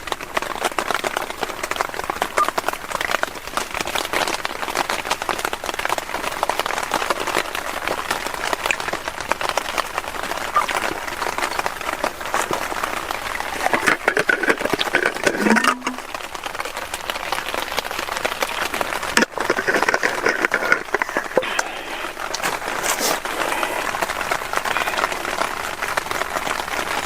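Heavy rain pattering steadily, a dense crackle of drops, with a brief falling tone about halfway through.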